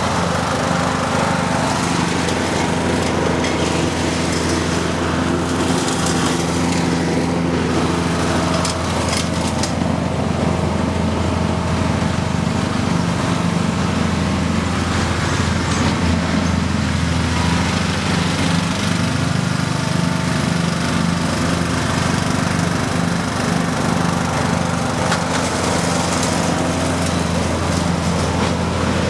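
A John Deere riding lawn tractor's engine running steadily while it mows grass, its blades turning under the deck.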